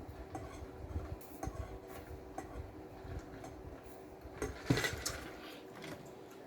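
Light, scattered clicks and clinks of tableware being handled, with a louder knock about three-quarters of the way through.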